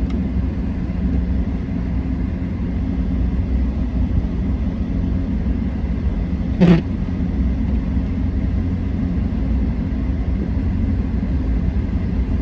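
Car driving: a steady low rumble of engine and tyres with a steady hum. There is one short, sharp sound about halfway through.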